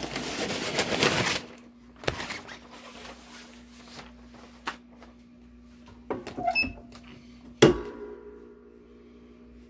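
A sheet of brown cover paper rustling as it is laid over a shirt on a 15x15 MPRESS clamshell heat press, then a few light clicks from the handle and the press closing with one loud clunk about seven and a half seconds in, the start of a second press over the glitter vinyl.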